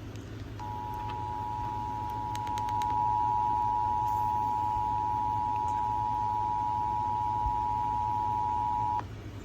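Emergency Alert System attention signal: the two-tone alert, two close pitches sounding together, held steady for about eight seconds and then cutting off, over a low background hum. It signals an incoming emergency broadcast, here a severe thunderstorm warning.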